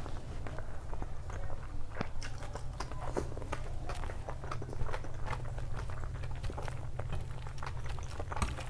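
Close-miked chewing and wet mouth sounds of someone eating, with many small irregular clicks and smacks. A steady low hum runs underneath.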